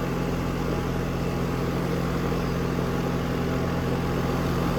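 Brand-new Goodman central air conditioner's outdoor condensing unit running steadily in cooling mode: the Copeland scroll compressor's low hum under the rush of air from the condenser fan.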